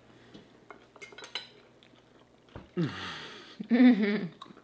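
Forks and knives clinking lightly on plates a few times. Then, about two-thirds of the way in, a breathy exhale and a short pitched hum of enjoyment, the loudest sound, made while tasting the food.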